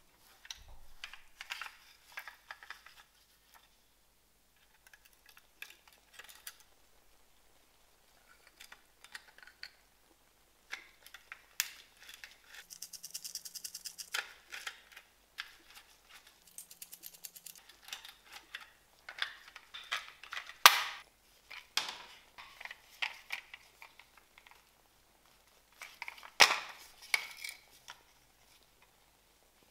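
Handling sounds of a small model car being taken apart: scattered light clicks and scrapes of plastic and metal parts, and a small screwdriver turning screws in the baseplate with two short runs of quick, even ticking. A few louder clicks and knocks stand out, about two-thirds of the way through and near the end.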